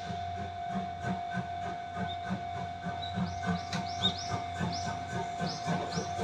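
Steam locomotive of the SL Paleo Express, the JNR class C58, working slowly with steady exhaust chuffs about three a second and a hiss of steam. A steady tone runs underneath, and high chirps join about three seconds in.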